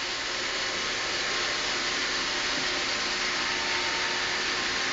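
iRobot robot vacuum running across a bare floor, a steady whir of its fan and brushes.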